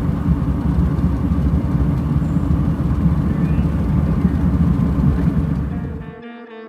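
Kawasaki KRX 1000 side-by-side's parallel-twin engine running under way, a dense low rumble that cuts off suddenly about six seconds in.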